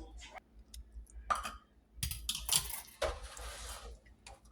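Scattered light clicks and knocks from small objects being handled, with two short bursts of rustling about two and three seconds in.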